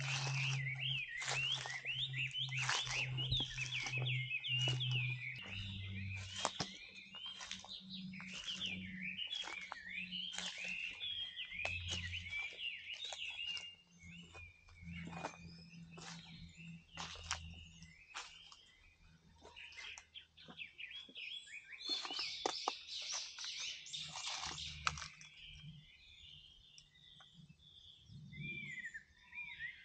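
Birds chirping in a dense, quick jumble, with sharp clicks scattered through and a low steady drone underneath. The chirping thins out about halfway through and swells again briefly a few seconds later.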